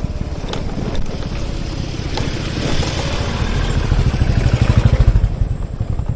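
A motor vehicle's engine running on the move, a steady low rumble that grows louder about four seconds in. A wash of hiss rises and fades in the middle.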